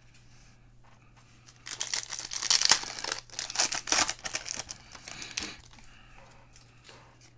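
Foil wrapper of a 2019 Panini Certified football card pack being torn open and crinkled in the hands. A burst of crackly ripping and crinkling starts a little under two seconds in and lasts about four seconds, loudest in the middle.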